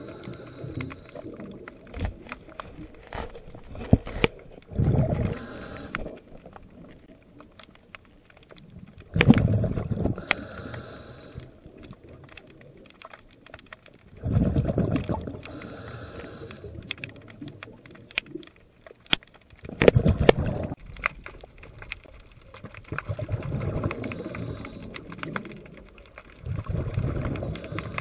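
A scuba diver breathing through a regulator underwater: the exhaled bubbles rumble in bursts of about a second, roughly every four to five seconds, with fainter hissing between them and scattered sharp clicks.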